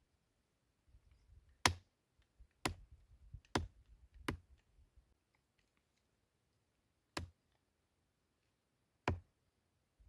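Knife chopping raw bird meat on a wooden tree stump: six sharp knocks of the blade striking the wood, four about a second apart, then two more spaced further out.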